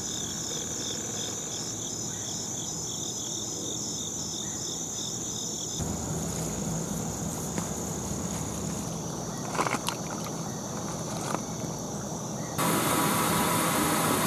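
A chorus of night insects calling steadily, with a fast rhythmic pulsing chirp over a high steady trill. The pulsing stops about six seconds in, a couple of faint knocks follow, and a louder hiss comes in near the end.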